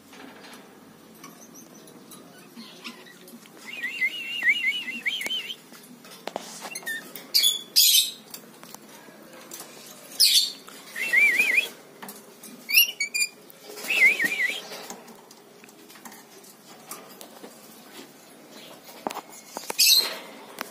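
Rainbow lorikeets calling: several short, shrill screeches mixed with runs of fast, warbling trilled chirps.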